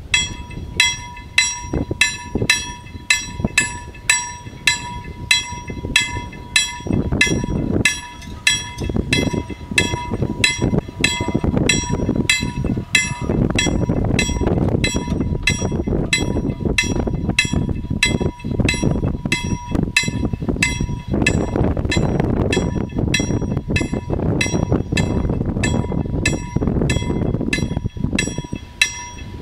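Level crossing warning bell ringing in steady, evenly spaced strikes, a little under two a second, with a steady high tone beneath it: the crossing has been activated and its barriers are coming down for an approaching train. A low rumbling noise comes in about seven seconds in and stays under the bell.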